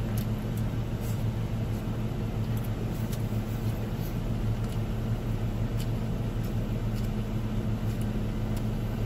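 Steady low hum of a car's idling engine heard inside the cabin, with a few faint clicks.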